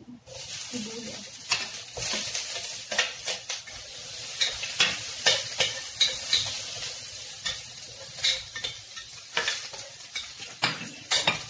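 Chopped onion and garlic sizzling in hot oil in a wok, starting as the onion goes into the pan, with a metal spatula repeatedly scraping and clanking against the wok as it is stirred.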